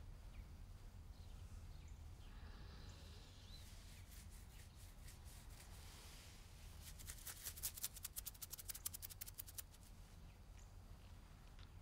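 Quiet room tone with a steady low hum. About seven seconds in comes a quick run of faint clicks, lasting about two and a half seconds.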